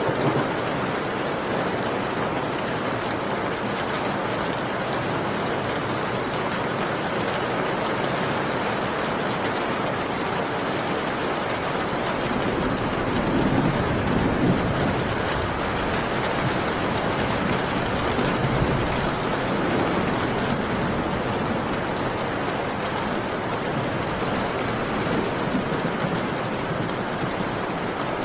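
Steady rain, with a low rumble of distant thunder swelling briefly about halfway through.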